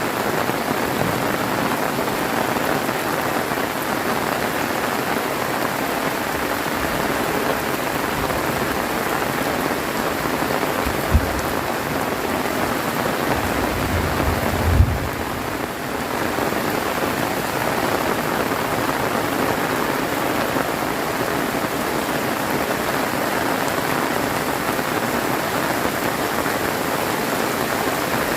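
Heavy rain pouring steadily, a dense even hiss of drops on surfaces. Two brief low thumps come partway through, the second a little louder.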